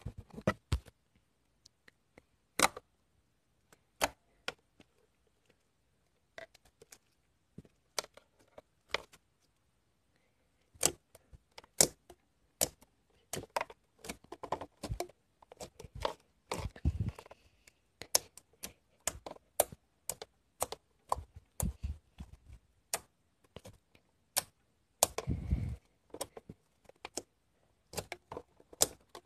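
White slime being pressed, poked and folded by hand: sharp clicking pops from air trapped in the slime, scattered at first and then coming quickly one after another, with two longer squelches later on.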